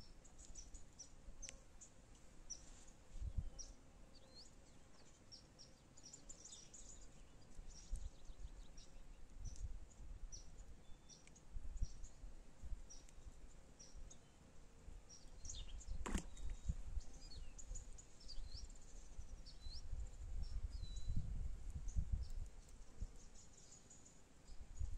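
Small birds chirping, many short high calls scattered throughout, over a low rumble that comes and goes. A single sharp click about sixteen seconds in.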